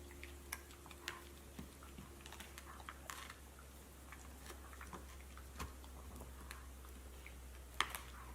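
Faint, irregular small clicks and soft crunches over a steady low hum, with a slightly louder double click near the end.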